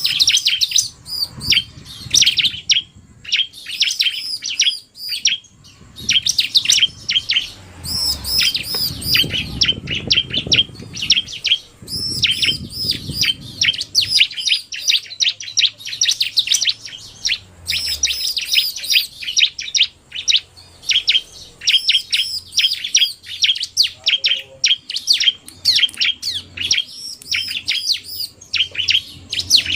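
Bar-winged prinia (ciblek) calling: rapid, high-pitched chirps and trills, repeated in quick runs with only short breaks.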